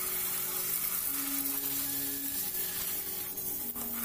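Water from a garden hose spraying and splashing over a motorcycle's front wheel and fairing, a steady hiss, with background music holding long notes underneath.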